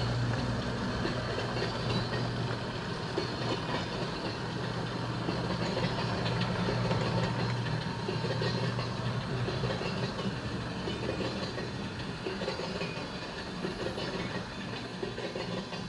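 Lionel O gauge freight train rolling slowly past on three-rail track: a continuous clatter of the cars' wheels, over a low hum that is strongest at first and fades away over the first several seconds.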